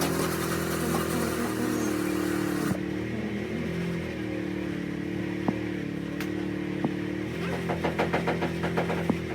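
A car engine idling steadily. A hiss sits over it for the first few seconds, and a quick rhythmic clatter, about four or five beats a second, comes in near the end.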